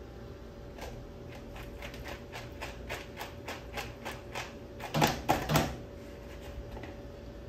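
Gas stove's electric igniter clicking rapidly, about five ticks a second, as the burner under the wok is lit; the clicking stops and three louder knocks follow about five seconds in.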